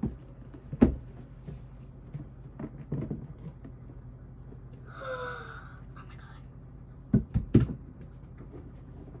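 Rigid cardboard gift box being handled and opened by hand: a knock about a second in, the fitted lid being slid up off the base partway through, and a few sharp knocks near the end as the lid is set aside.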